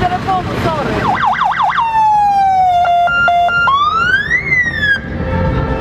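Fire engine's electronic siren stepping through its tones. A fast yelp comes first, then a slowly falling wail, then rapid pulsing, then a tone that rises and falls. It cuts off abruptly about five seconds in.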